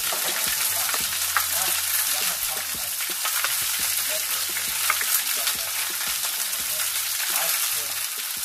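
Chicken pieces sizzling steadily as they fry in a skillet, with scattered clicks and scrapes of a spoon stirring in a metal baking pan.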